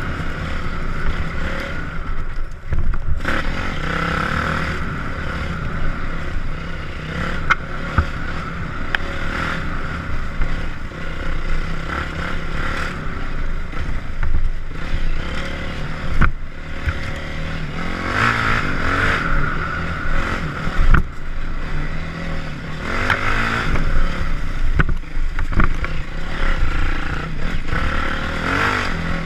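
Yamaha WR450F's single-cylinder four-stroke engine running as the bike is ridden along a rough dirt trail, its note rising and falling with the throttle. A few sharp knocks come through along the way.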